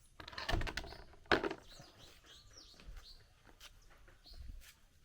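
Birds chirping in short, repeated calls, with a clatter and one sharp knock in the first couple of seconds.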